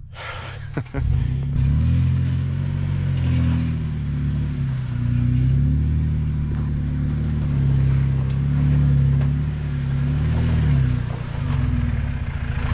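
Off-road 4x4's engine running under light throttle as the vehicle creeps over rock. It gets louder about a second in, and its pitch rises and falls several times with the throttle.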